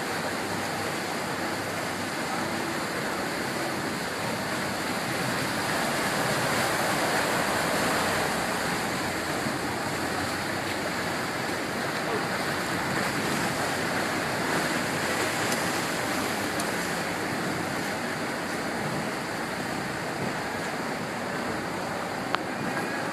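Steady rush of water and wind from a motorboat water taxi under way at speed, with one short click near the end.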